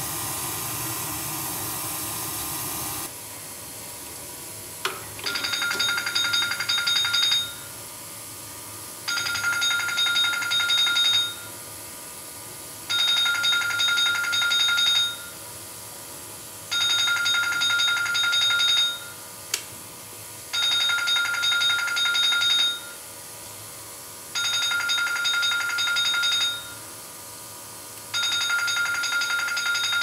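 Electronic alarm trilling in bursts about two seconds long, seven times, roughly every four seconds, starting about five seconds in. Before it, a steady hiss cuts off about three seconds in.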